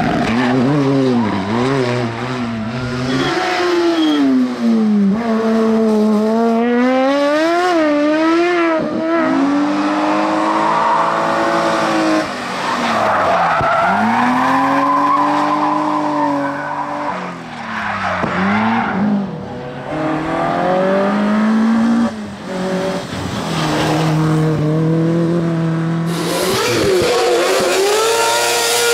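Racing car engines revving hard in turn as hillclimb cars are driven through tight bends, pitch climbing and dropping repeatedly with gear changes and lifts off the throttle, with tyre squeal. The cars are a modern rally car, an older BMW coupe and a single-seat kart-cross buggy.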